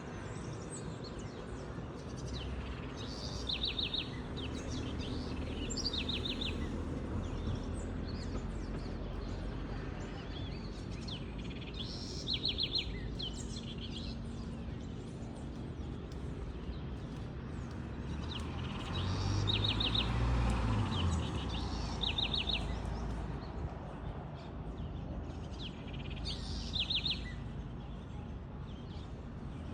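Birds calling: one bird repeats a short call of four or five rapid high notes every few seconds, over a steady background of other faint chirps. A low rumble swells briefly about two-thirds of the way through.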